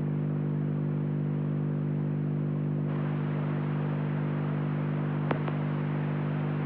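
Ambient drone music: a steady low sustained chord with its overtones under a wash of hiss-like noise that brightens about three seconds in, with a single sharp click about five seconds in.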